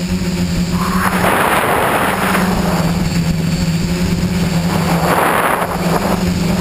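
Multirotor tricopter's electric motors and propellers humming steadily, heard from the aircraft's own camera, the pitch easing slightly as the throttle changes. Rushing air noise swells over the hum twice.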